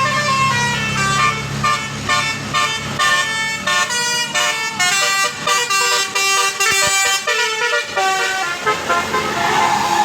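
Telolet basuri musical bus horn playing a quick melody of short stepped notes, with fast runs in the middle, that thins out about eight seconds in. A low steady drone sits under the first few seconds.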